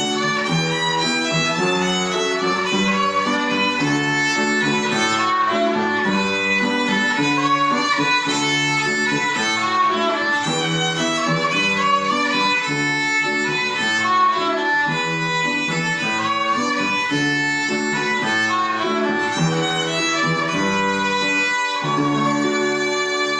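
Instrumental music: a pitched melody line over a lower accompaniment of sustained notes, moving into held closing notes near the end.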